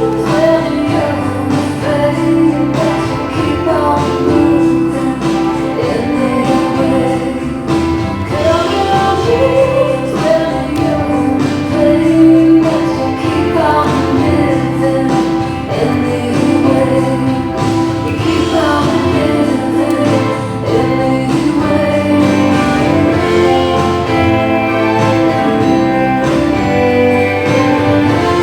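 Recorded music with singing, played loud over a gym's sound system for a rifle solo performance.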